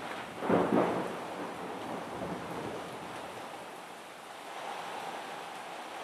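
Heavy rain falling steadily, with a short loud burst about half a second in.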